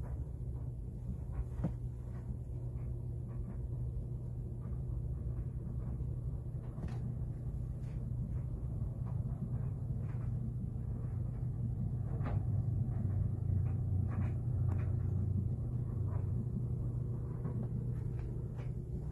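A steady low hum or rumble with faint scattered clicks and ticks, slightly louder around the middle.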